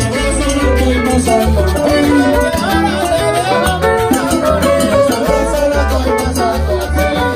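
A salsa band playing live, with a walking bass line under shifting melodic lines and a steady, evenly pulsed percussion rhythm.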